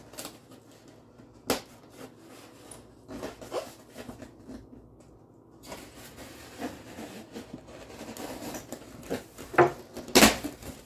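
Knife slicing packing tape along the seam of a styrofoam shipping box, with intermittent scraping and rubbing of the foam. There is a sharp click about a second and a half in, and a couple of louder knocks near the end.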